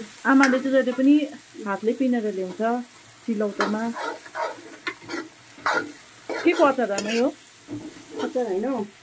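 A steel spoon stirring and scraping diced onions, peppers and tomato in a frying iron wok (kadai), with a pitched, squeaky scrape on each stroke about once a second over a light sizzle.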